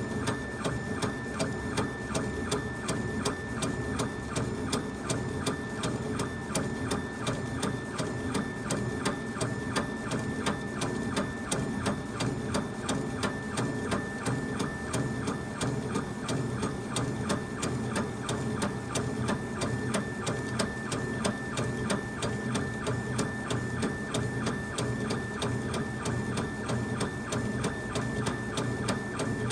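Laser engraver running an engraving job: its stepper-driven head sweeps back and forth in a rapid, even rhythm over a steady whine of the motors.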